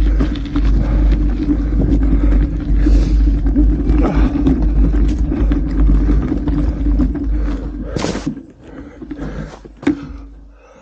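Wind rumbling on the microphone of a moving mountain bike, mixed with sharp rattles and knocks from the bike on a rough forest track. The rumble dies down about eight seconds in, leaving a few separate knocks.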